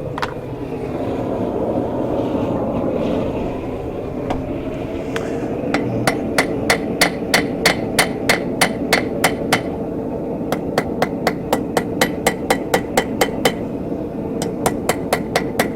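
Hand hammer striking a steel bar on an anvil in runs of quick, evenly spaced blows, about three a second, each with a short metallic ring. The runs are broken by two brief pauses, over a steady background rush.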